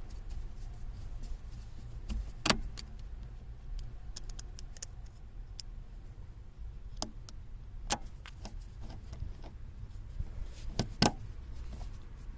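Scattered clicks, taps and light knocks of hand work on a car's steering column, with parts and screws being handled and fitted, over a steady low hum. Two louder knocks stand out, one about two and a half seconds in and one near the end.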